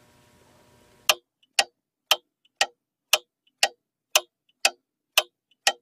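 Mechanical clock ticking, starting about a second in: sharp, evenly spaced ticks about two a second, with a much fainter tick between each pair.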